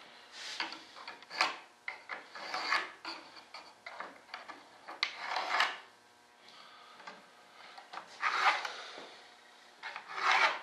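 Wooden model parts rubbing and scraping against each other and the bench as they are handled and fitted together, in a series of irregular short scrapes. Longer scrapes come about five and eight seconds in, and a sharper one near the end.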